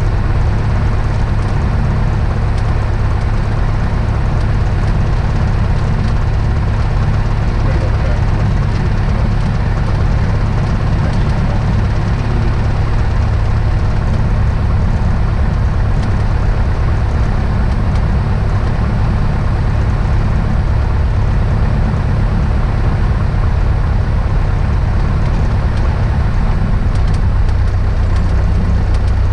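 Beechcraft Musketeer's four-cylinder piston engine and propeller running steadily, a constant low drone heard inside the small cockpit.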